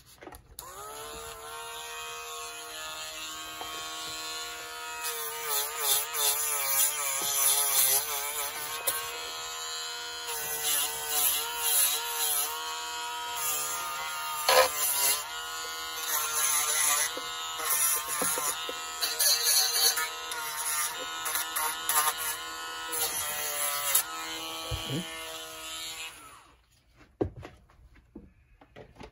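Small high-speed electric rotary tool running with a steady buzz, its pitch sagging and wavering at times as it is pressed against metal, with a scratchy grinding sound over it; it stops suddenly near the end. It is scrubbing corrosion off battery terminals.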